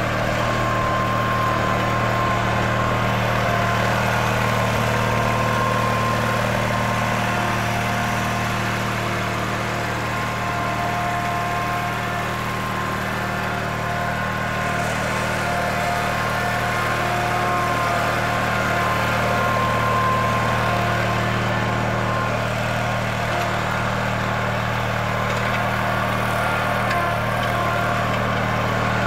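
Zero-turn riding mower's engine running steadily as the mower drives and turns, with a higher whine that comes and goes over the hum.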